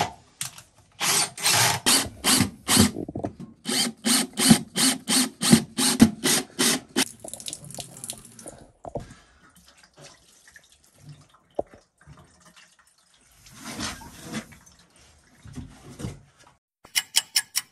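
Cordless drill run in a quick series of short bursts at a shower tray's drain fitting, about two a second. Then water is poured out and splashes onto the resin shower tray. A fast run of clicks comes near the end.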